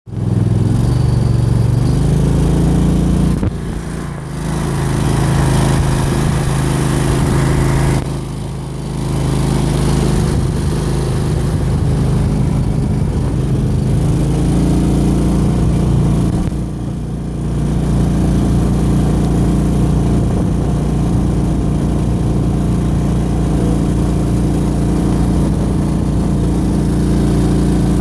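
Go-Devil mud motor running steadily, easing off briefly three times before coming back up.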